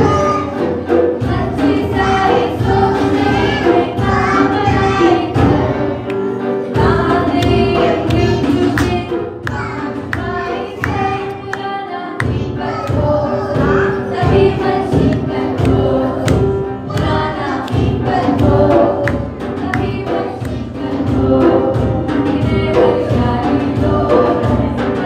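A song with a group of voices singing together over a musical backing with a beat.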